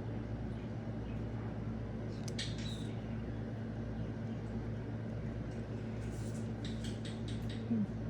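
Paper handling during tag-making: a few soft rustles and clicks of paper pieces being moved and pressed down, about two and a half seconds in and again near the end, over a steady low electrical hum.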